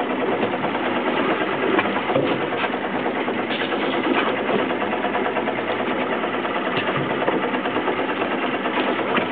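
Boat engine running steadily at idle.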